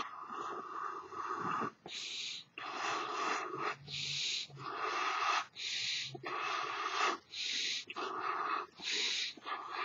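A large latex figure balloon being blown up by mouth: sharp breaths drawn in alternate with long puffs blown into the balloon's neck, a regular cycle about every one and a half to two seconds.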